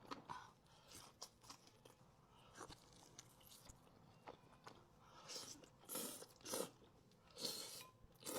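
Close-miked eating: crunching bites and chewing of crispy fried chicken wings, with small chewing clicks at first and then several louder crunches in the second half.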